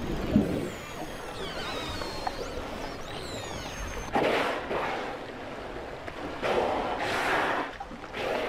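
Killer whales: thin whistles sliding up and down underwater, then three loud breaths blown at the surface, about a second each, the first about four seconds in.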